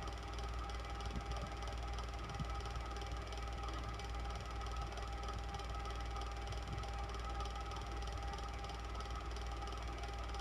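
Electric fan running steadily: a low motor hum with a few steady whining tones over an even rush of air.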